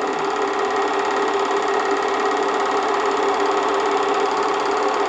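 8mm film projector running with a steady mechanical whir and rapid clatter.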